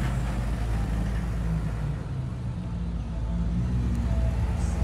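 Car engines running at low speed with a steady low rumble, growing louder near the end as another car draws near.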